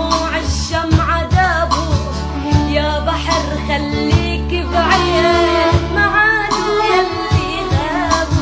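Arabic song: a sung melody bending up and down in pitch over held accompaniment notes and a beat of deep drum hits.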